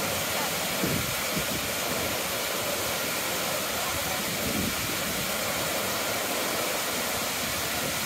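Steady rushing of several waterfalls pouring over mossy ledges into a pool, an even roar of falling water with no breaks.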